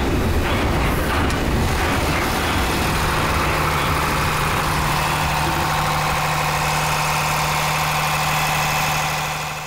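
Ship's diesel generator running steadily, a loud even machine drone; about three seconds in, a steady low hum and a higher buzzing come through more plainly as the door of its soundproof enclosure is opened.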